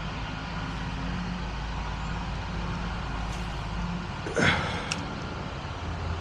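A motor vehicle's engine running steadily, a low hum, with one brief sharp sound about four and a half seconds in.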